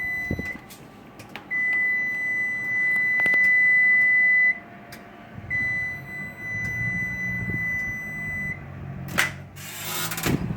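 Combination oven/microwave beeper sounding the end of the popcorn cycle: long, steady, high beeps of about three seconds each, two full ones after the tail of an earlier one. Near the end, a click and a short rush of noise.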